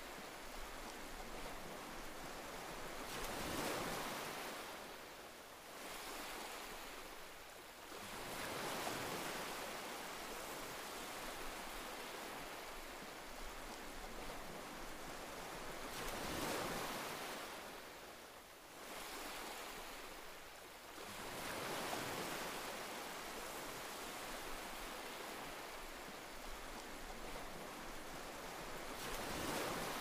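Sea waves breaking and washing in. The sound is a steady rush that swells into a louder surge every five to eight seconds and then ebbs.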